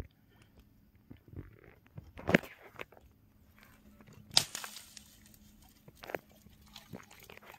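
Dry brush and dead branches crackling and snapping as they are grabbed and pulled aside at the water's edge, with two sharp cracks about two and four seconds in.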